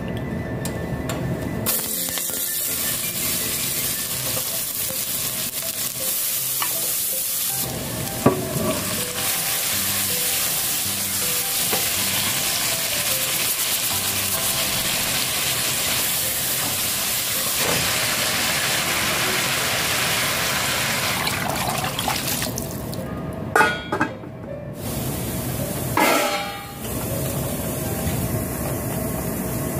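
Food sizzling in a hot pan as it is stirred, with a few sharp clinks of a utensil against the pan near the end.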